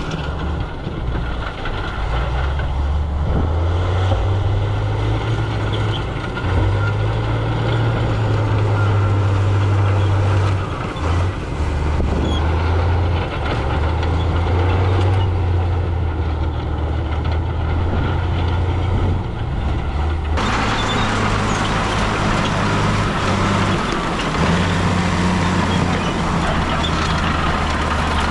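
Heavy diesel earthmoving machinery running, a low engine drone that rises and falls as it works. About twenty seconds in, the sound switches abruptly to a noisier, brighter mix.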